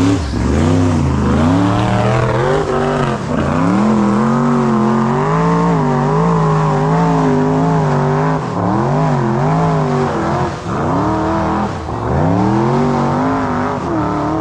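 High-horsepower off-road hill-climb vehicle's engine running hard at high revs, its pitch wavering up and down, with several quick drops and swoops back up as the throttle is worked on the climb.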